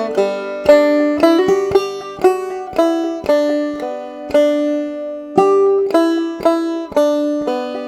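Five-string banjo played clawhammer style: a simple melody of sharply plucked notes that ring and fade, with one longer-held note about halfway through.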